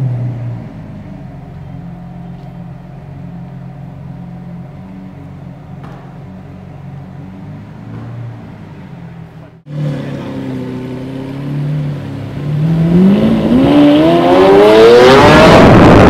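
Lamborghini Aventador's V12 idling steadily; after a sudden cut the engine runs low for a moment, then accelerates hard, its pitch climbing steeply to a loud full-throttle run near the end.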